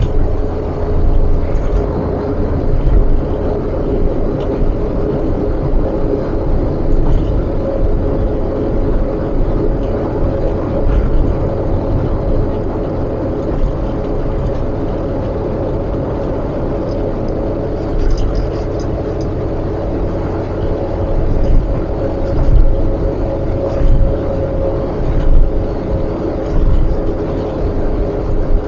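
Car on the move: steady engine and road noise with a continuous low rumble and a steady hum.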